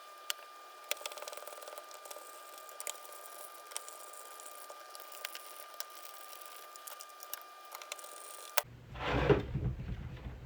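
Faint, scattered clicks and taps of small plastic parts being handled and fitted together, over a steady faint high whine. Near the end there is a short, louder rustling sound.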